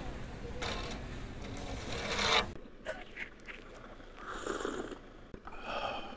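Low outdoor rumble that cuts off suddenly, then two short slurping sips of coffee from a glass cup, each about half a second long.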